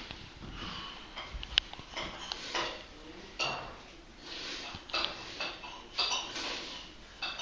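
Crockery and cutlery clinking and knocking irregularly on a table, several strikes giving short ringing pings.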